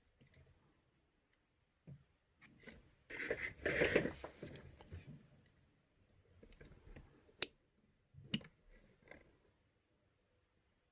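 Small metal parts of an airsoft hop-up chamber being handled while a pin is worked out. There is a scraping rattle about three to four seconds in, then two sharp clicks a second apart near the end, and faint ticks in between.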